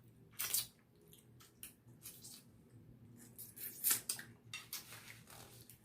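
Close-up eating sounds: wet chewing and lip-smacking heard as scattered short clicks and squishes, a little louder around the middle and near the end.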